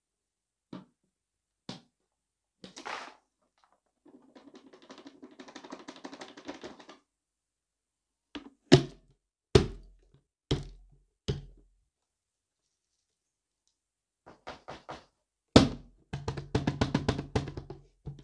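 Loose grit, beads and small debris rattling and shifting inside a cardboard box as it is tilted and moved. There are several hard thunks as the box knocks down, four in quick succession in the middle and a loud one near the end, which sets off a burst of fast rattling.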